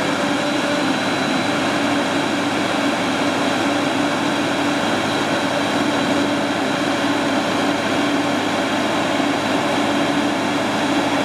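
Caterpillar TL943C telehandler's diesel engine running at a steady pitch with an even, unchanging hum.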